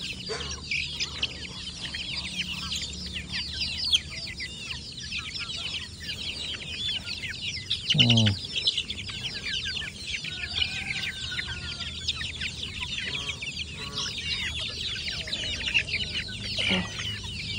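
A flock of young kampung chickens (ayam KUB) peeping and clucking as they peck at a pile of wet feed, a dense chorus of overlapping high-pitched peeps.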